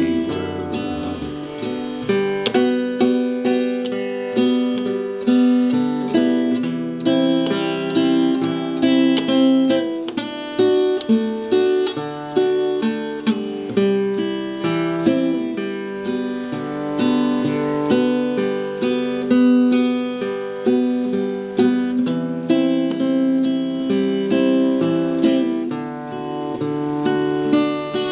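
Solo acoustic guitar playing an instrumental break between sung verses, single picked notes of a melody mixed with strummed chords in a steady rhythm.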